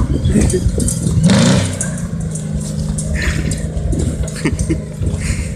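Bedford truck engine running steadily as the truck drives away, with a louder rising swell about a second in.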